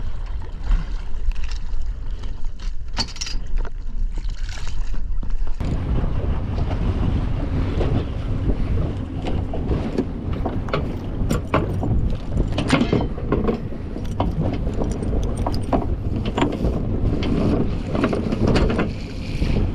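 Wind buffeting the microphone and water slapping a small boat's hull, with scattered knocks and clatter as the anchor rope is hauled in over the bow. The wind and water noise becomes much louder about five and a half seconds in.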